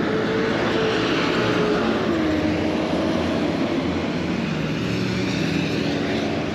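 A steady engine drone with a slowly wavering pitch.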